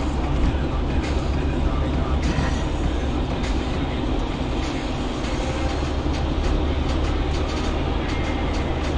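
Steady road and engine rumble inside a moving car, recorded by the dashcam, with frequent small clicks and rattles.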